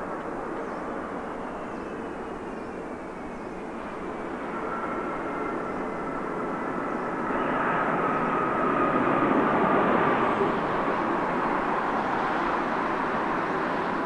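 Airbus A330-300 jet with twin Pratt & Whitney PW4000 turbofans passing on landing. The engine noise builds to its loudest about ten seconds in, with a whine that slides slowly down in pitch.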